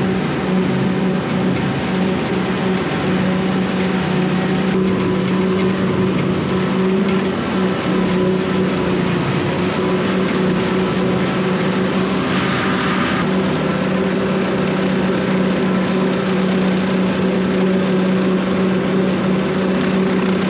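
Tractor engine running steadily under load while pulling a bush hog rotary cutter through overgrown brush, a constant drone at one pitch. A brief higher rattle sounds about two-thirds of the way through.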